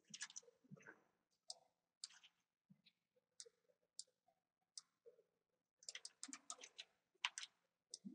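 Faint computer mouse and keyboard clicks, scattered and irregular, with a quick run of clicks near the end.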